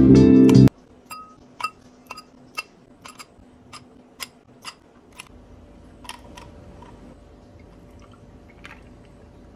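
Ice cubes dropped into a glass tumbler, about a dozen sharp clinks of ice on glass over a few seconds, then a few more. Near the end, milk is poured faintly over the ice.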